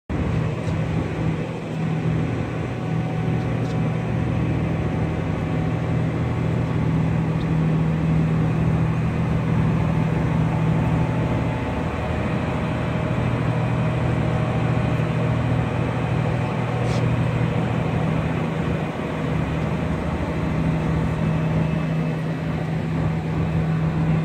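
A car ferry's engines and machinery running with a steady low drone, under a constant rushing noise.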